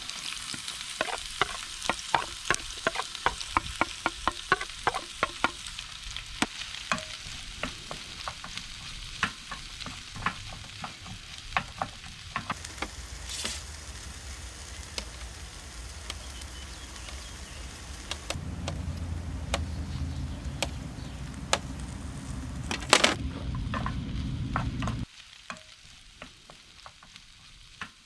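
Food sizzling in a pan while a utensil stirs and taps against it: quick clicks several times a second at first, then sparser. A low rumble joins about two-thirds of the way in, and everything drops off suddenly a few seconds before the end.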